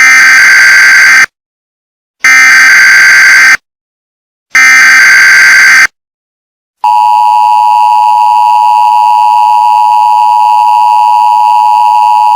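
Emergency Alert System header: three bursts of SAME data tones, each a little over a second long and about a second apart. Then the steady two-tone EAS attention signal sounds for about five and a half seconds, announcing that an emergency alert message follows.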